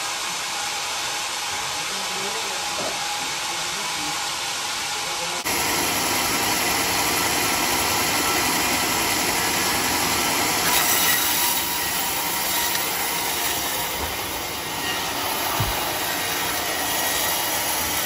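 Band sawmill running steadily as its blade cuts through a large mahogany log. The noise steps up sharply about five seconds in.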